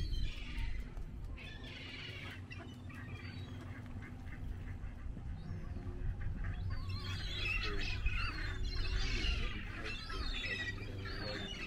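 Ducks quacking: a couple of calls at the start, then a busier flurry of quacks and squawks through the second half, over a steady low rumble.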